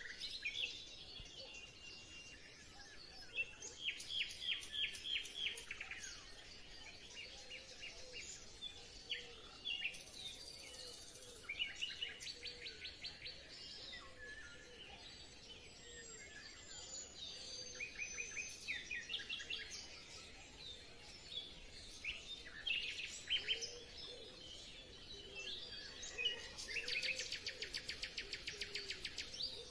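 Songbirds chirping and singing, with bursts of fast trilled notes and one long rapid trill near the end.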